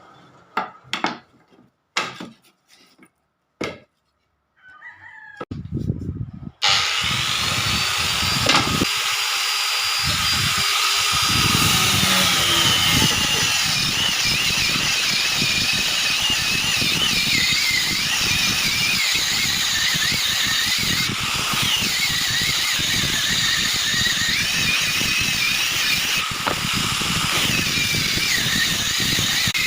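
A few knocks and clicks, then about six and a half seconds in a woodworking power tool starts and runs loudly and steadily on wood, its whine wavering in pitch.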